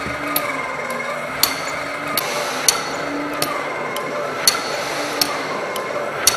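Motorized kinetic sculpture mechanism running with a steady whir, its reciprocating parts giving sharp clicks or knocks about once a second at slightly uneven intervals.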